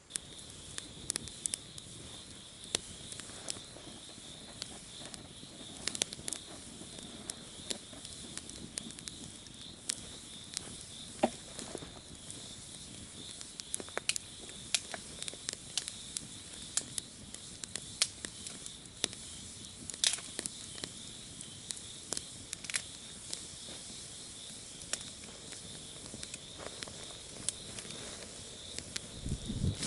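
Campfire crackling with irregular sharp pops, over a steady high-pitched insect drone. A low thump near the end.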